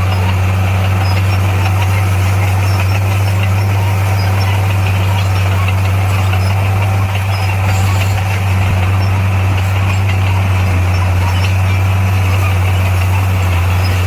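Heavy earthmoving machine's diesel engine running steadily with a deep, even drone.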